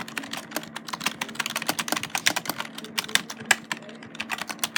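Rapid, irregular typing on a computer keyboard, keys clicking several times a second over a faint steady low hum.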